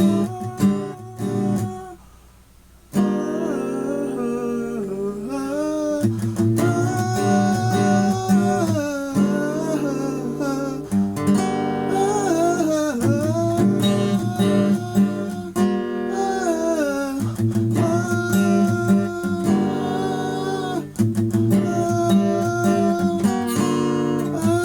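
Strummed guitar music with a wavering melodic line over the chords, which stops for about a second near the start and then comes back.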